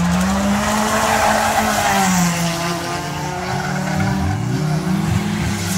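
Several racing saloon cars' engines revving as they race around an oval track, their engine notes rising and falling over one another.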